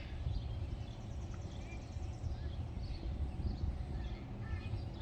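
A steady low rumble of outdoor noise, with scattered short bird chirps and a brief rapid high trill a second or two in.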